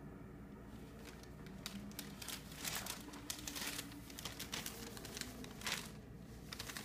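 Thin plastic shopping bag crinkling and rustling in irregular bursts as a kitten walks about wearing it over its back. It starts about a second in and is busiest around the middle.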